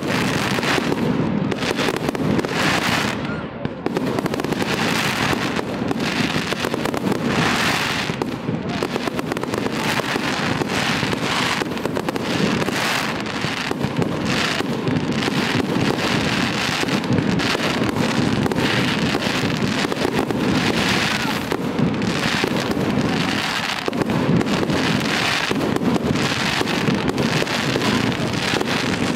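Aerial fireworks display: a dense, continuous barrage of shell bursts, bangs and crackle with no pauses.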